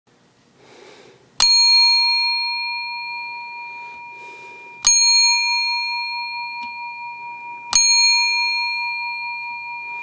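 A small metal bell struck three times, about three and a half seconds apart, each strike ringing clearly with several pure tones that slowly fade.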